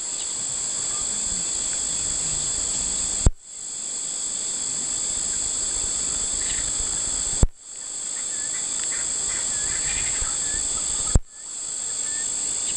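A steady, shrill insect chorus in the bush, broken by a sharp click about three seconds in, again near seven and a half seconds and near eleven seconds. After each click the sound briefly drops away and then returns.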